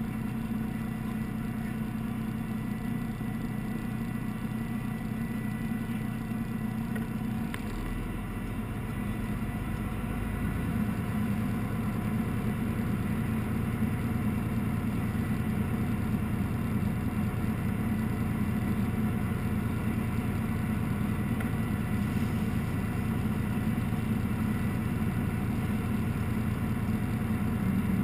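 Fire engine's engine running steadily at the scene, heard from inside the cab. Its sound changes about eight seconds in and runs a little louder from about ten seconds on.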